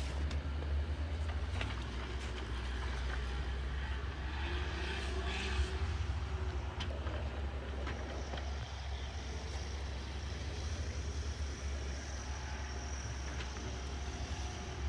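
Vehicle engine running steadily, heard as a continuous low rumble with a few faint clicks.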